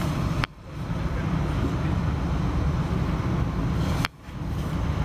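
Steady low rumble of an Alstom Régiolis electric multiple unit running along the line, heard on board. Twice, about half a second in and again about four seconds in, a click is followed by a brief drop-out of the sound before the rumble returns.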